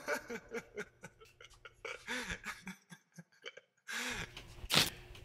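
A person laughing in a run of short, quick syllables, then after a brief pause a second burst of laughter that ends in one loud sharp burst near the end.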